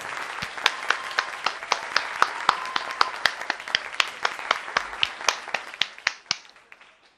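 One person clapping steadily, about four claps a second, over a crowd's applause. Both die away a little after six seconds in.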